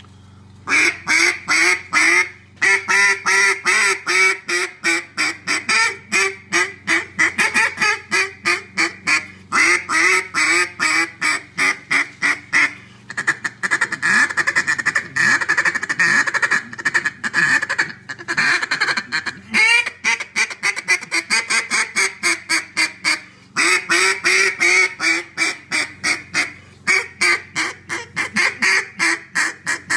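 D2D duck call blown by hand, working its low end: long runs of rapid quacks with short pauses between them, and a denser, near-continuous run in the middle.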